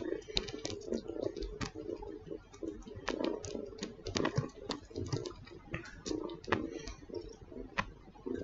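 Kitten suckling on a human earlobe: quick, irregular sucking clicks and smacks, several a second, close to the microphone.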